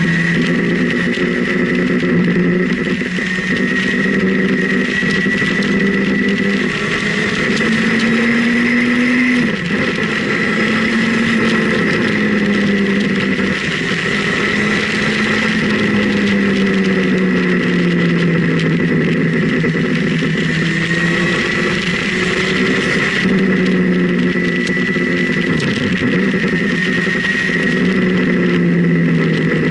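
Motorcycle engine running at road speed, its pitch rising and falling slowly as the bike speeds up and eases off through the bends, over a steady rush of wind and road noise and a steady high whine.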